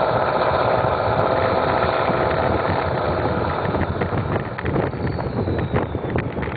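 Ford 6.0L Power Stroke V8 turbodiesel running under way, its exhaust coming out of a tall bed-mounted stack. Wind buffets the microphone more and more from about two-thirds of the way in, as the engine sound eases.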